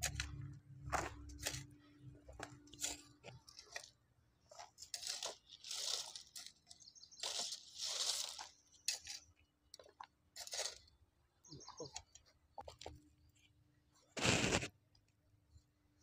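Short-handled hoe scraping and digging into dry soil and tipping it into a terracotta pan: a run of scrapes and knocks with two longer gritty pours of soil in the middle, and the loudest thump near the end.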